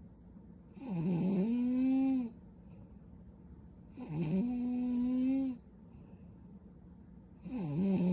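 A young woman snoring in her sleep, three snores about three seconds apart. Each lasts about a second and a half: a short dip in pitch, then a steady hum-like tone.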